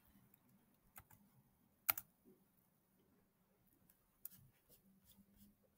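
A few isolated clicks of a computer mouse or keyboard, the loudest about two seconds in, over near-silent room tone.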